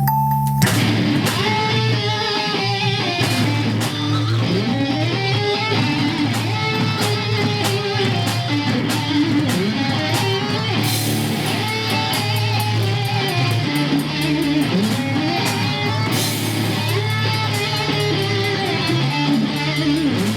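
Band music with no singing: electric guitar playing bending lead lines over a steady bass and drums. It comes in about a second in, after a held keyboard chord.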